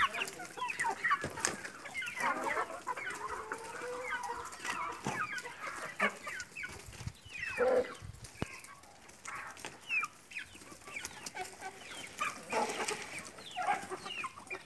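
A flock of chickens clucking while feeding, with many short, overlapping calls throughout and a few sharp clicks.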